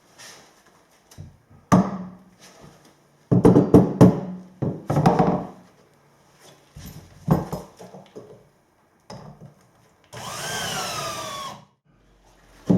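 Wooden knocks and clunks as timber is handled, then about 10 seconds in a short run of a power tool, like a drill, lasting about a second and a half with its pitch sliding down.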